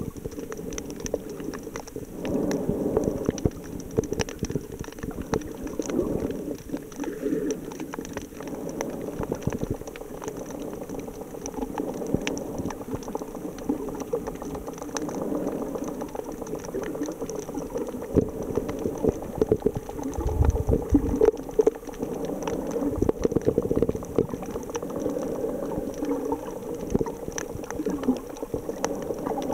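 Underwater noise picked up by a submerged camera: muffled bubbling and swishing of water with a steady crackle of fine clicks, and a low thump about twenty seconds in.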